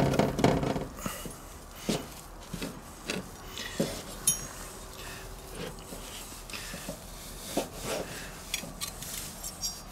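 Steel knife and fork cutting a grilled T-bone steak on a wooden board: scattered light clicks and taps of the blade and fork against the bone and the board, the sharpest about four seconds in.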